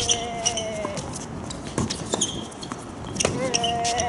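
Tennis rally on a hard court: rackets strike the ball twice, about a second and a half apart, amid light footsteps and small clicks. Twice, a drawn-out whistling tone sounds for about a second, once at the start and once near the end.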